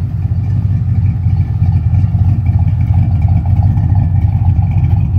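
Corvette's 350 small-block V8 idling steadily through an aftermarket Flowmaster exhaust, a continuous low rumble.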